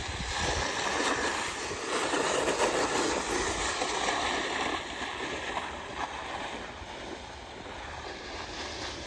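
Snowboard sliding down an icy, snow-covered road: a steady scraping hiss that swells over the first few seconds and eases off in the second half.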